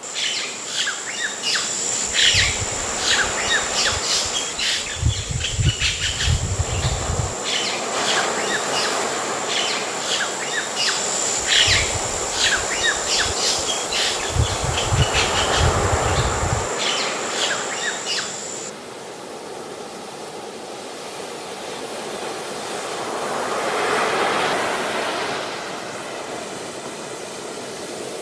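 Many birds chirping rapidly over a constant high whine and the wash of the sea, with two stretches of low rumble. About two-thirds of the way through, the chirping and whine stop, leaving the surf, which swells and falls back.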